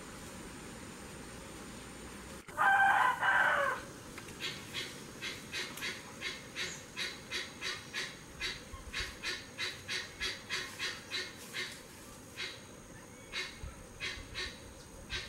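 Bird calls. A loud, harsh call of about a second and a half comes a couple of seconds in. It is followed by a long run of short, high chips at about three a second, which thin out near the end.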